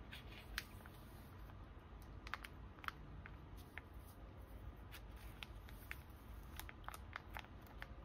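Photocards in plastic sleeves being handled and pushed into the clear pockets of a ring binder page: soft, scattered ticks and crinkles of plastic, bunched about two seconds in and again near the end, over a faint low rumble.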